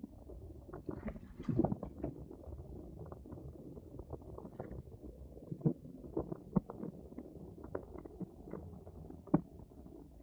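Water slapping and gurgling against the hull of a Sunfish sailboat under way: a run of irregular small knocks and slaps over a low rumble.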